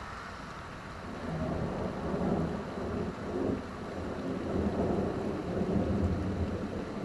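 A long, rolling rumble of thunder over steady rain. The rumble starts about a second in, swells, dips briefly, then swells again and keeps going.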